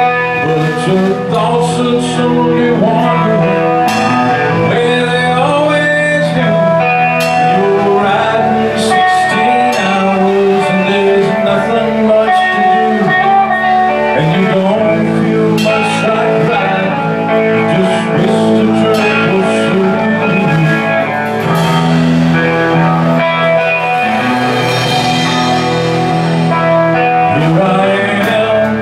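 Live band playing a slow blues-rock song on electric guitar, bass guitar and drum kit.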